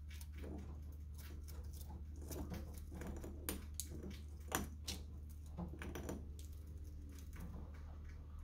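Chinchilla gnawing a chew stone: quick, irregular scraping clicks of its front teeth on the stone, with a few louder clicks midway, over a steady low hum. The gnawing wears down its ever-growing incisors.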